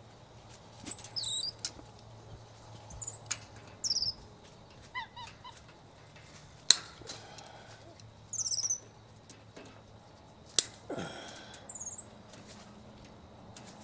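Short, high-pitched chirping calls in scattered bursts of several notes, with two sharp knocks about seven and ten and a half seconds in.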